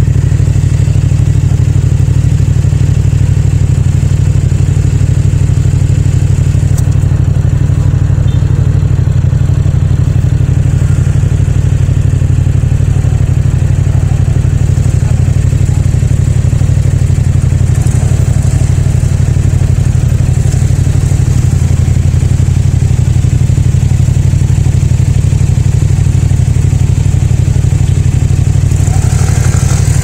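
Yamaha MT-07's 689 cc parallel-twin engine and exhaust, running loud and steady with its pitch holding level and no revving up or down.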